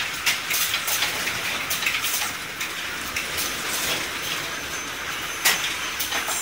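Polythene garment bags rustling and crinkling close to the microphone, a dense run of irregular crackles over a steady hiss of factory noise, with one sharper crackle about five and a half seconds in.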